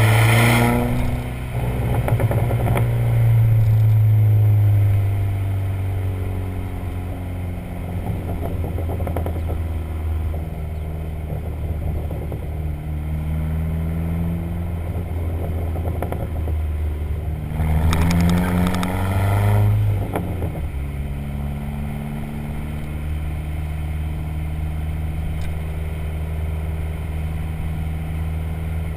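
Dodge SRT-4's turbocharged 2.4-litre four-cylinder engine revved and held for a few seconds, then falling back slowly. It is revved again about 18 seconds in and then settles to a steady idle. Exhaust crackles and pops sound as the revs drop, from a Stage 1 tune on the stock exhaust.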